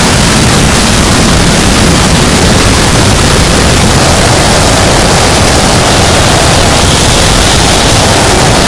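Harsh noise wall: a loud, unbroken wall of dense distorted static filling the whole range from deep rumble to high hiss, with only slow shifts in texture, a midrange band thickening about four seconds in.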